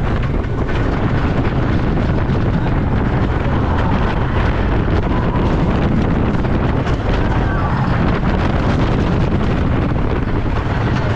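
Heavy wind noise buffeting the on-ride microphone over the steady rumble of an RMC wooden roller coaster train running along its track at speed.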